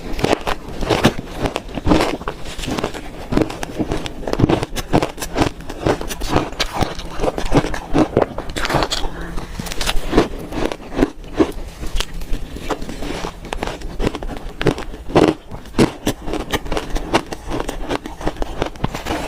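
Close-miked biting and chewing of crunchy frozen red shaved ice: a quick, irregular run of sharp crunches and crackles, several a second.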